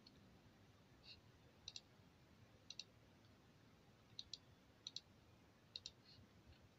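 Near silence: quiet room tone with faint, sharp clicks, mostly in quick pairs, coming irregularly about once a second.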